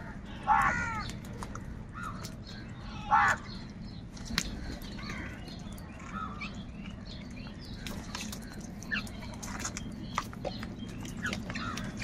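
House crows cawing as a flock feeds: two loud harsh caws about half a second and three seconds in, then softer scattered calls and many short sharp clicks.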